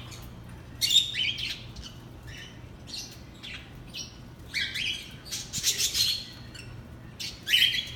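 Parrots in an aviary squawking and chirping in short bursts, with a busier run of calls about halfway through and another near the end.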